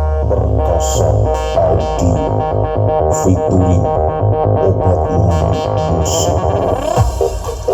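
Electronic dance music with a synthesizer melody and heavy, pulsing bass, played loud through a large carnival sound system of ten subwoofers and line-array speakers during a sound check.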